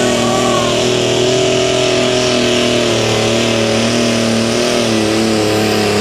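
John Deere Light Limited Super Stock pulling tractor's engine running flat out as it drags the weight-transfer sled down the track: a loud, steady drone whose pitch wavers slightly.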